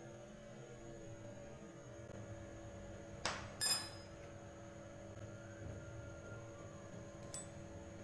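Metal spoon clinking against a glass mixing bowl: two ringing clinks a little after three seconds in, and a lighter one near the end, over a steady low hum.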